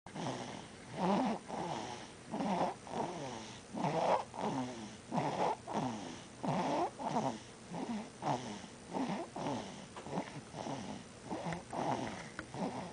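A 2-month-old baby snoring in his sleep: short, rapid snoring breaths about twice a second, each with a wavering pitch.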